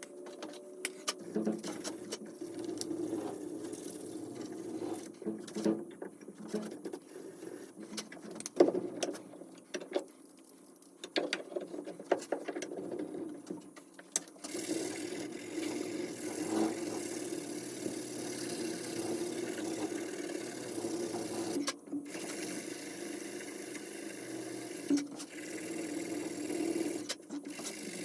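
Sandpaper rubbed by hand over the knife: irregular strokes with handling clicks for about the first half, then steady, fast back-and-forth scrubbing.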